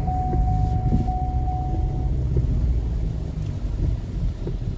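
Ford Endeavour SUV driving on a rain-wet road, heard inside the cabin: a steady low rumble of engine and tyres. A thin steady high tone sounds over it and stops about two seconds in.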